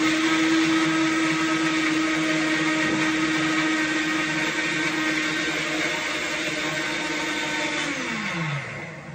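Electric blender running steadily at high speed, blending raw chicken liver with water. Near the end it is switched off and the motor winds down with a falling pitch.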